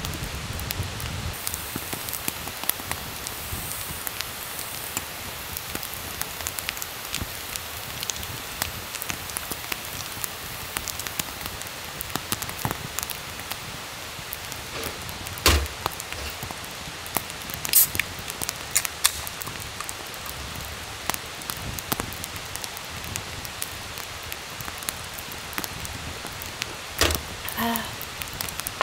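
Wood campfire crackling: a steady hiss with scattered sharp pops, a few louder snaps past the middle and near the end.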